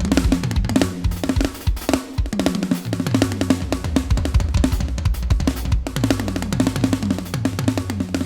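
Drum kit played in a fast, busy pattern: bass drum, snare and toms struck in quick succession with rolls, the toms ringing out at clear pitches.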